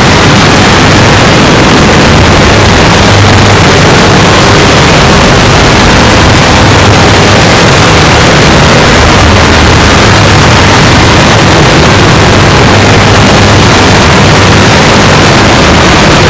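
A sneeze recording run through stacked digital audio effects until it is an unbroken, harsh noise at full volume, with no pauses and no recognisable sneeze left in it.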